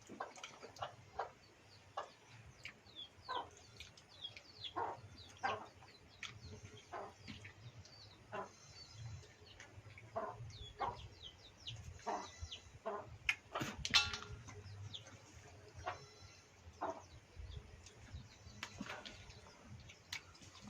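Chickens clucking and small birds chirping in short, scattered calls, with a few quick high chirps around the middle.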